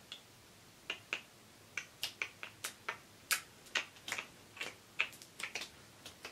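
Fingers snapping: a run of short, sharp clicks, about two to three a second at uneven spacing.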